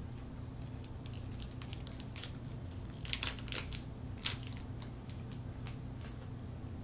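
Crisp chocolate wafer bar being chewed: scattered sharp crunches and crackles, thickest about three to four seconds in, over a steady low hum.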